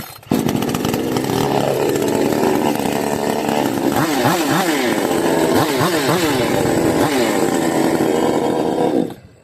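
Petrol chainsaw engine starting just after the beginning and running loudly. In the middle it is revved up and down several times, then it is shut off suddenly near the end.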